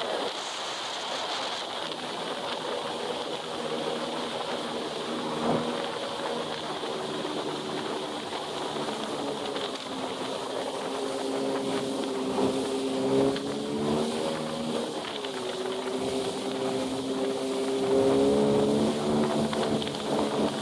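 Personal watercraft (jet ski) engine running under way with a steady rush of water and wind; its pitch dips and rises a few times in the second half, and it gets louder near the end.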